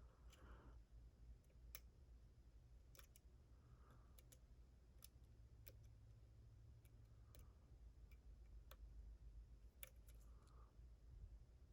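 Faint, irregularly spaced light clicks of a lock pick working the pins of a Den Brass challenge lock during single-pin picking.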